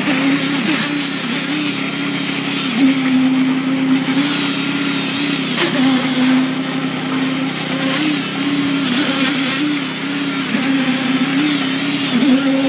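Engine of concrete-pouring machinery running steadily, its pitch dipping briefly every few seconds as the load changes, with a few short knocks and a steady hiss over it.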